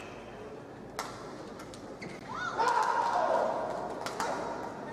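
A raised voice calls out across a large badminton hall, rising in pitch and then held for about a second near the middle, with a few sharp racket-on-shuttlecock hits from play nearby.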